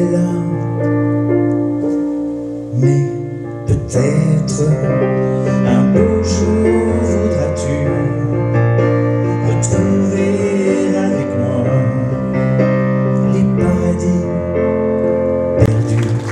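A song played live on a digital stage piano with a woman singing over it. It ends on a final chord near the end, and clapping begins.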